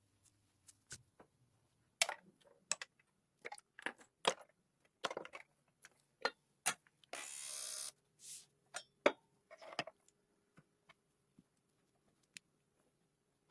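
Irregular clicks and taps of small tools and parts being handled during bench restoration work on an old radio, with a short hiss about halfway through.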